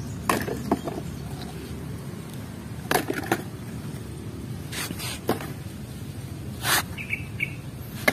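Several sharp knocks and scrapes of mud-caked plastic toy vehicles being picked up and set down on a cement floor, spaced a second or two apart, over a steady low background hum.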